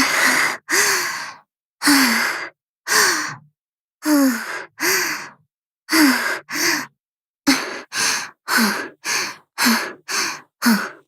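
The anime character Nanachi's high, breathy 'weird noise', a short sighing vocal with a pitch that dips and rises again, repeated over and over. It comes in pairs at first, then about twice a second from around seven seconds in.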